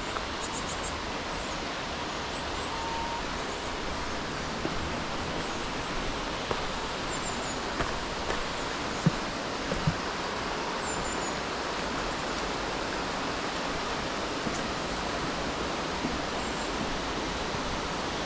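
Steady rush of flowing mountain water, an even noisy wash with a few small clicks and knocks on top.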